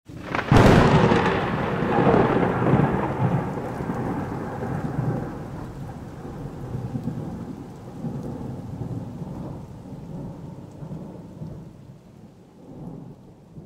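Thunderclap about half a second in, then a long low rumble that fades over the following seconds with a few smaller swells, over steady rain.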